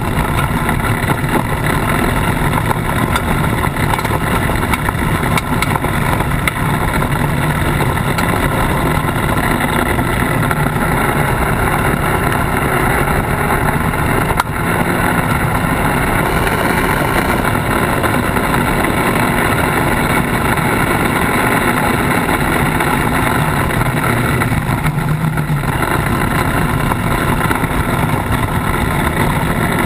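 Polaris RZR side-by-side driving steadily along a gravel and dirt track, heard from a camera on its bumper: the engine running under a loud, even wash of tyre and gravel noise.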